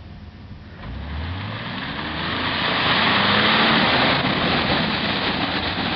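Jeep Wrangler's 4.0-litre six-cylinder engine revving up, the note rising about a second in, as it drives hard through a mud puddle, with a loud rush of spraying muddy water that peaks near the middle and eases off toward the end.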